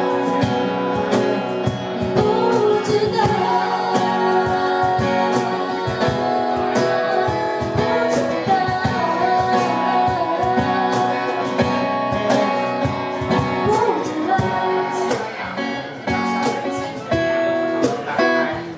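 A band playing a song: sung vocals over guitar and a steady beat, with a brief dip in loudness near the end.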